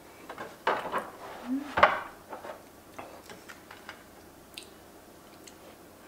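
Tomato soup slurped from a spoon close to the microphone: two loud slurps in the first two seconds, then small clicks and taps of the spoon and wet mouth sounds.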